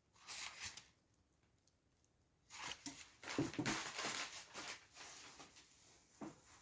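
Packaging being handled and rustled while a parcel is unwrapped, in short noisy bursts: once briefly about half a second in, then a longer spell of rustling from about two and a half to five seconds in.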